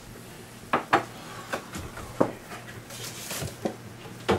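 About seven light knocks and clicks, spaced irregularly, of kitchen things being handled: dishes, utensils or cupboards, over a faint steady hum.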